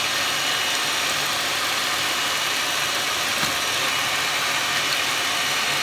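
Moulinex Supermix electric hand mixer running steadily, its beaters whisking a creamy mixture in a plastic bowl.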